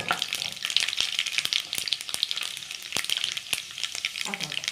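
Mustard seeds, urad and chana dal and cumin frying in hot groundnut oil: a steady sizzle with many small crackling pops, stirred with a wooden spatula in a nonstick kadai.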